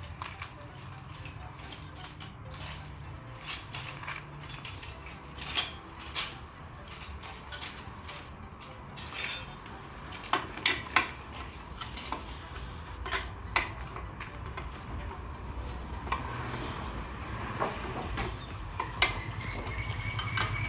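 Scattered sharp metallic clinks and knocks of tools and metal parts being handled during a boat repair, over a low steady hum.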